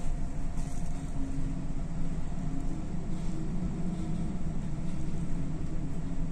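Steady low rumble with a faint hum on an oil tanker's bridge in heavy seas, the ship's machinery and the storm mixing into one continuous drone, heard from inside the wheelhouse.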